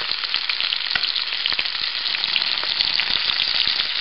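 Frog legs frying in a pan: a steady sizzle with frequent small pops.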